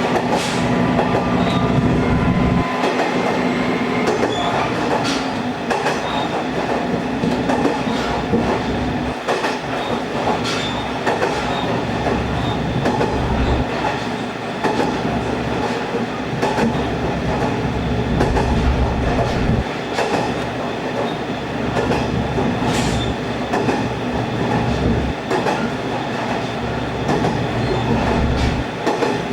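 Diesel railcar running along the line: steady rumble of wheels on rail with scattered sharp clicks from rail joints, and a low engine drone that comes and goes in stretches.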